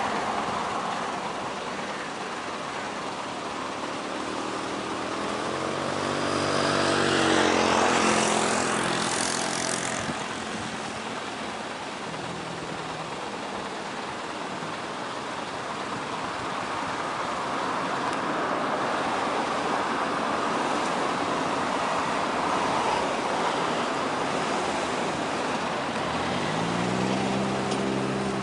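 Twin turboprop engines and six-bladed propellers of an ATR 72 airliner running, over a steady rushing noise. About a quarter of the way in a louder sweep rises and fades. Near the end a buzzing propeller drone builds as the aircraft comes on at takeoff power.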